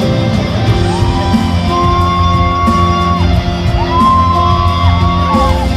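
Live pop song played through a large hall's PA system: a female singer holds long sustained notes over band accompaniment.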